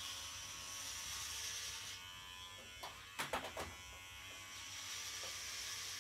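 Corded electric hair clippers buzzing steadily while cutting hair, the buzz turning hissier as the blades pass through the hair for the first couple of seconds and again near the end. A few short clicks a little past halfway.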